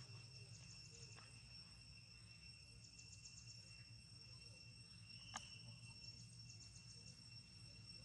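Near silence: faint outdoor ambience with insects chirping in a few short, rapid trills over a steady high whine, and one faint click about five seconds in.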